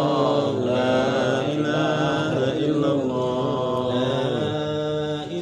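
A group of men chanting an Arabic devotional litany (dhikr) together, in long, drawn-out melodic phrases.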